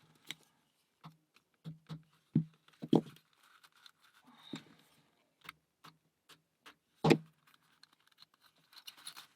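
Wooden parts of a UGears combination lock model clicking and knocking as they are handled and pressed into place: scattered light taps, with two louder knocks close together about a third of the way in and another about three-quarters through.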